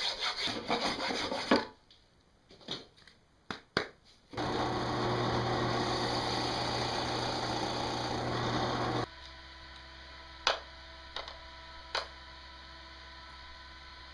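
A hand saw cutting fiberglass laminate in quick, even back-and-forth strokes, then a few knocks. A power tool then runs steadily for about five seconds and cuts off suddenly, leaving a hum and a couple of sharp taps.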